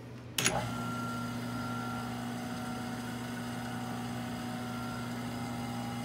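A sharp click about half a second in, then a Jet 1220 wood lathe running steadily with an even, smooth hum. There is no knocking: the knocking fault has been fixed.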